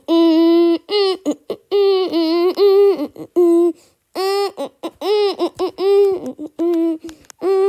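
A high-pitched voice making wordless vocal sounds: a run of short held 'ooh'-like notes at a fairly steady pitch, each bending at its start and end, with brief gaps between them.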